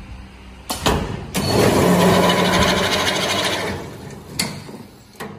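Semi-automatic paper tube cutting machine running a cut. Two sharp clunks start the cycle, then the row of circular blades cuts through the paper tube with a loud, dense rushing noise that lasts about two and a half seconds and fades. Two more sharp clunks come near the end.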